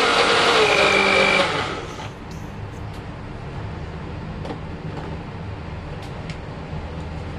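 Electric countertop blender running on a thick vegetable porridge, switched off about a second and a half in. A few light clicks follow as the jug is lifted off its base, over a steady low hum.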